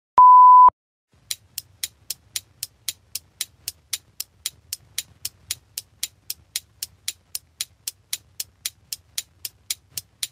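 A short steady beep, then a clock-ticking sound effect, sharp even ticks at about four a second over a faint low hum, marking a pause to download the files.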